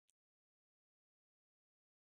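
Near silence: a silent stretch of audio, with one very faint, short click just after the start.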